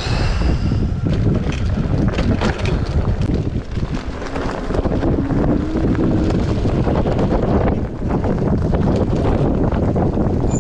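Wind rushing over the microphone while riding a bike along a bumpy dirt track, with frequent knocks and rattles from the bike.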